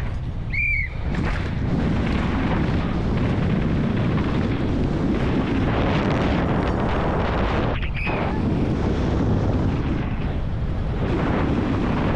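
Steady loud rush of wind buffeting a helmet-mounted action camera's microphone, mixed with a downhill mountain bike's tyres rumbling and rattling over a dirt and gravel track at speed. A brief high squeal sounds just after the start and again about eight seconds in.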